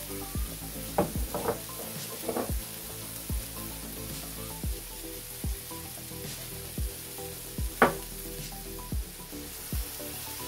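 Hamburger patties sizzling steadily in hot cast iron skillets, with a few sharper crackles.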